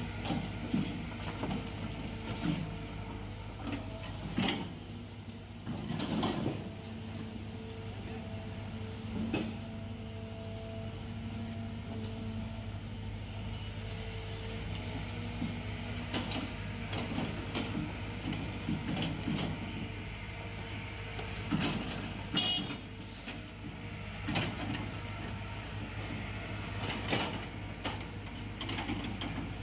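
Kobelco long-reach excavator's diesel engine running steadily beside a dump truck, with irregular clattering and thuds every few seconds as loads of soil are dropped into the truck's steel body.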